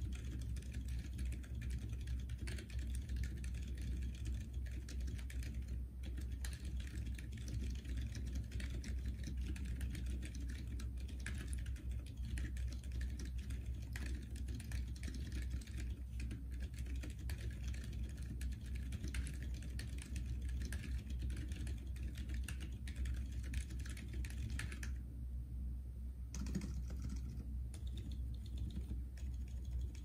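Fast, continuous typing on a custom mechanical keyboard with lubed Gazzew Boba U4 silent tactile switches (62 g springs) in an acrylic Prime Elise case. It is a dense run of muted key clacks, with no spring ping from the donut-dipped springs. Most of the sound comes from the keycaps and case rather than the switches themselves. A steady low hum runs underneath.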